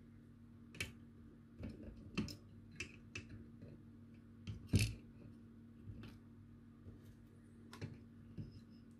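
Small flush cutters snipping the excess wire leads of soldered through-hole resistors on a circuit board: a series of sharp snips, irregularly spaced, the loudest about five seconds in.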